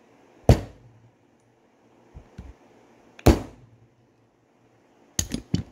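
Hammer striking a hose clamp tool to force a retaining clip down onto a car's power door lock actuator rod: two sharp metal strikes about three seconds apart, then a quick run of lighter taps near the end.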